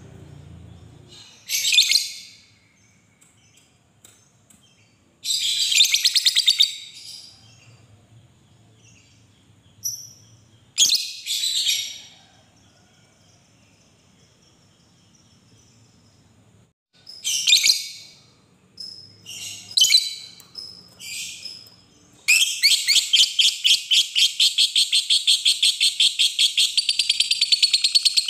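Lovebird calling: several short bursts of shrill chirps with pauses between, then, about two-thirds in, a long unbroken fast chattering trill (the 'ngekek'), about eight pulses a second.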